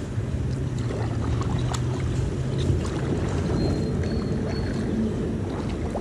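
Kayak being paddled: the paddle blades dip and swish through the water with small splashes and drips, over a steady low noise.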